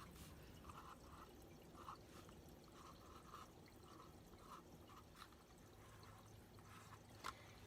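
Faint room tone with a series of short, quiet scratchy strokes, like a marker drawing scales on a cardboard tube, and a single click near the end.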